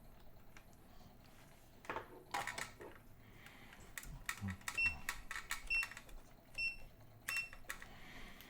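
Test gear being handled on a workbench: scattered clicks and knocks, with four short high electronic beeps about a second apart in the second half.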